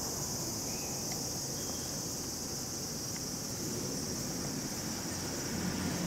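Steady high-pitched insect chorus of evening crickets, with a low steady rumble of outdoor background noise underneath.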